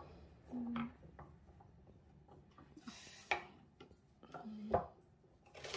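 A kitchen knife slicing through a carrot onto a plastic cutting board: a few separate chops with pauses between them.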